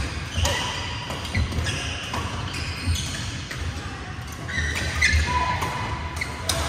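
Badminton rallies in a large echoing hall: rackets hitting shuttlecocks as sharp cracks, mixed with short shoe squeaks and the thump of footwork on the court floor.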